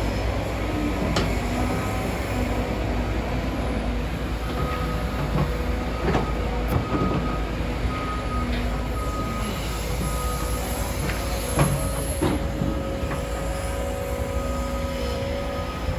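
CAT 325 hydraulic excavator digging: a steady diesel engine rumble with a hydraulic whine that comes and goes. Metal squeals and several sharp clanks, the loudest about eleven and a half seconds in.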